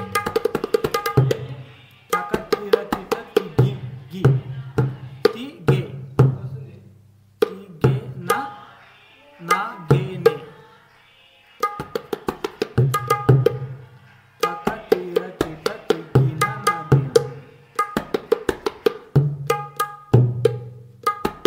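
Tabla pair played in quick tirakita filler phrases in dadra taal. Rapid strokes on the right-hand drum are mixed with booming ge strokes on the bass drum, in bursts separated by short pauses.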